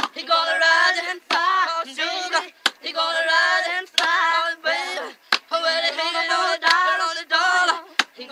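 Gospel-style singing voices, with wavering, sliding vocal lines and no bass. A sharp click comes about once every second and a quarter.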